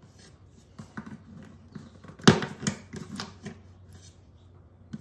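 Light clicks and scratches of the old strings and bridge pins being handled on an acoustic guitar's bridge, with one sharp click a little over two seconds in.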